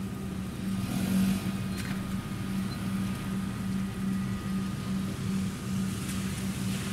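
Cars driving off across a level crossing on a wet road as the boom gates rise, with a low hum that pulses about two to three times a second and a brief swish of tyres.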